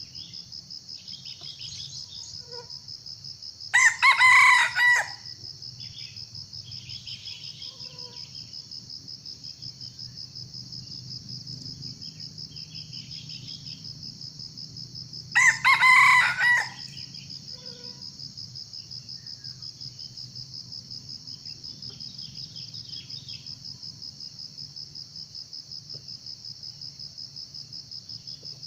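A junglefowl crowing twice, each crow a little over a second long and about twelve seconds apart, over a steady high trill of crickets.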